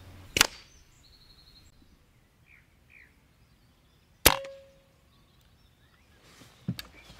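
Two shots from a silenced Cometa Orion SPR .22 PCP air rifle: a sharp crack about half a second in and another about four seconds later, the second followed by a short metallic ring.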